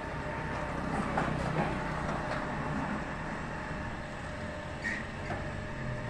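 Steady mechanical rumble with a faint hum and a few light knocks.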